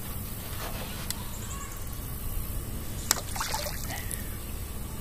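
A sharp click, then a short splash of water about three seconds in, over a steady low rumble.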